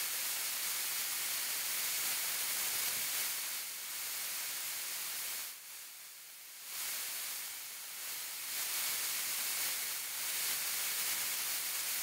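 Radio-frequency interference from a switched-on wireless microphone transmitter, picked up by a JZ Microphones Vintage 11 condenser microphone that is not RF shielded. It comes through as a steady hiss of static, heaviest at the high end, that dips for about a second past the middle and then swells again.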